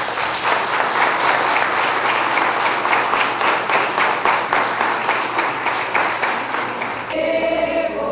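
A congregation applauding, many overlapping hand claps. About seven seconds in, the clapping gives way to a choir starting to sing.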